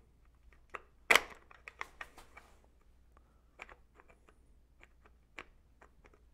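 Small metal parts clicking and clinking as a reflector bracket and headset spacers are fitted onto a bicycle fork's steerer tube: a sharp click about a second in, the loudest, then scattered lighter clicks.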